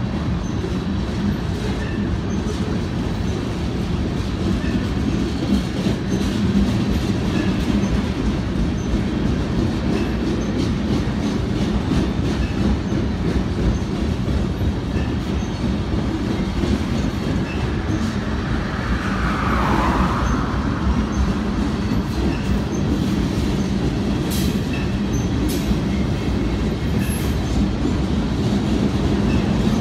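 Freight train of boxcars and refrigerated cars rolling past, a steady low rumble of steel wheels on rail. A short higher-pitched screech comes about two-thirds of the way through, and sharp clicks come near the end.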